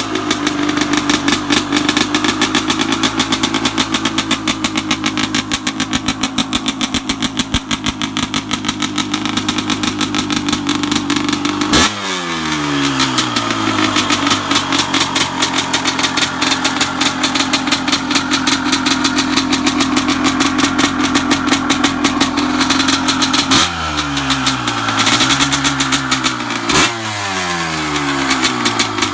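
Honda CR250's single-cylinder two-stroke dirt bike engine running hard at high revs. Its pitch drops sharply about twelve seconds in and twice more near the end, then picks back up.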